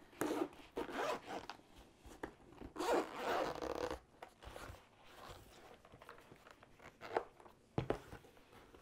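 Zipper on a hard-shell bead storage case being drawn in quick scraping strokes, followed by a few light knocks as the case is handled.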